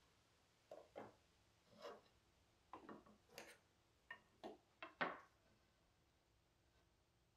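Faint knocks and clatter of wooden face-frame strips being handled and laid down on a workbench: about a dozen short taps over four seconds, the loudest about five seconds in.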